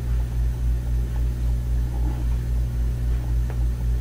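A steady low rumbling hum, its level wavering about three or four times a second.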